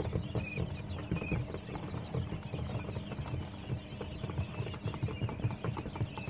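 A brood of three-day-old Japanese quail chicks peeping: a dense chorus of small, high chirps, with one loud, sharp peep repeated twice in the first second and a half, over a low rumble.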